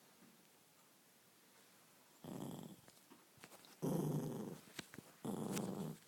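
A dog growling in three short rough bursts, starting about two seconds in after a quiet start.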